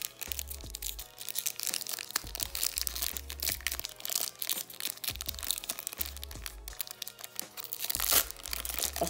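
Foil wrapper of a Pokémon card booster pack crinkling and crackling as it is torn open and the cards are drawn out by hand, over background music with a steady bass line.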